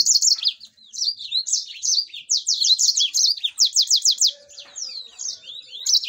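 Canary singing: a continuous run of quick, high chirps and whistled notes, with a fast trill of repeated sweeping notes in the middle.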